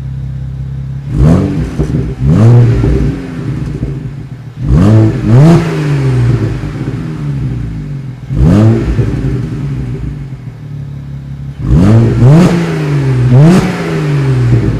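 BMW 1M's stock twin-turbo inline-six idling, then blipped about eight times, mostly in quick pairs, each rev shooting up sharply and falling back to idle.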